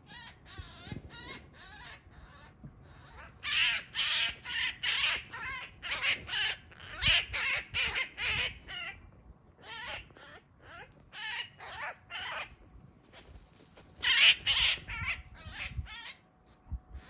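Eurasian magpie giving harsh, rasping distress calls while pinned down by a Eurasian sparrowhawk. The calls come in four bouts of quick repeats, about three a second, and the loudest bout is near the end.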